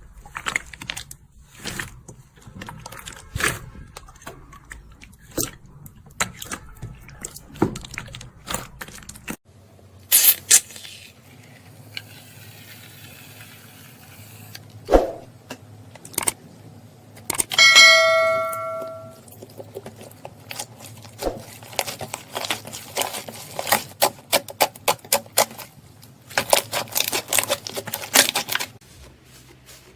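Slime being squeezed and pressed by hand, giving runs of crackles, pops and clicks across several short clips. A brief ringing tone with overtones sounds about 18 seconds in.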